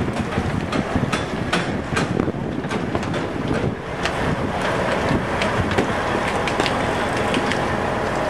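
Semi-trailer trucks rolling slowly over a temporary roadway of ground-protection panels: a steady low rumble with scattered clicks and knocks throughout, and a faint steady tone joining past halfway.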